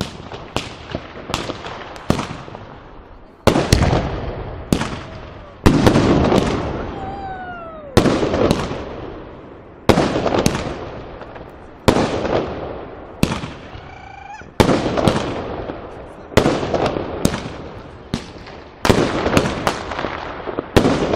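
Aerial fireworks bursting in a continuous display: a sharp bang about every two seconds, each trailing off in a long echo, with smaller crackling reports in between. A few short falling whistles sound among the bursts.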